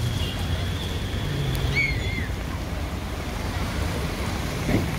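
Wind rumbling on the microphone over road traffic noise, heard from a moving vehicle. A thin high whine sounds for the first two seconds, and a brief high chirp comes about two seconds in.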